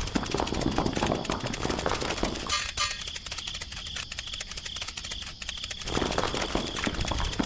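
Crickets chirring steadily in the background under two stretches of dense gritty crunching and scraping, a rock dragged over sand and gravel. The first stretch stops about two and a half seconds in, after a short rattle; the second starts about six seconds in.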